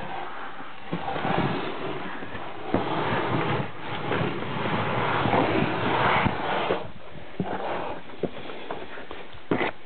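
Footsteps scuffing and knocking on sandstone and clothing rustling against rock as a hiker squeezes through a narrow slot, louder and busier in the middle stretch, with scattered sharp clicks.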